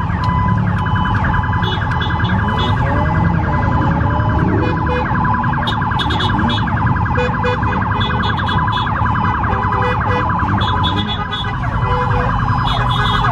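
Many car horns blaring at once in a steady, continuous honking chorus, with shorter beeps cutting in and out over it.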